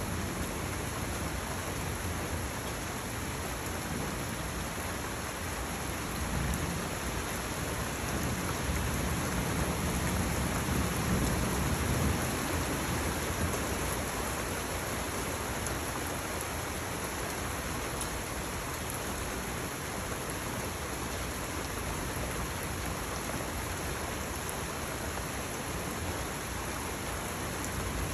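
Heavy rain falling steadily, with a low rumble of thunder swelling and fading about ten seconds in.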